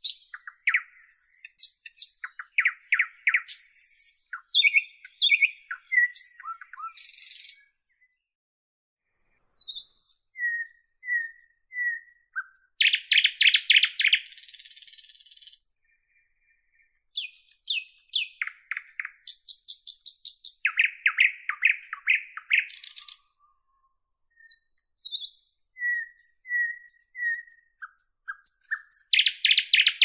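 Nightingale singing: varied phrases of clear whistles, high notes and loud, rapid runs of repeated notes. The phrases are broken by short pauses, three times.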